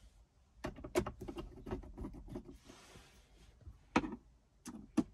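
Crosshead screwdriver driving the screws of a Range Rover P38 centre console lid hinge rail: a quick run of small clicks and scrapes starting about half a second in and lasting nearly two seconds, then a few more clicks near the end.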